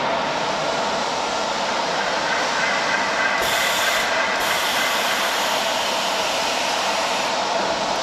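Steady running noise of a 200 kW medium-frequency induction heating furnace under power, with a faint steady tone in it and a brief higher hiss about three and a half seconds in.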